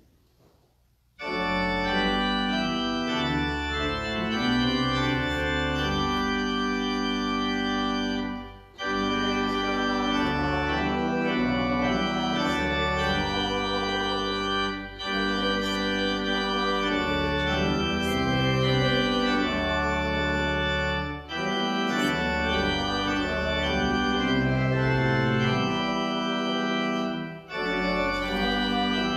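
Church organ playing a hymn tune, starting about a second in, in sustained chords with short breaks between phrases about every six seconds.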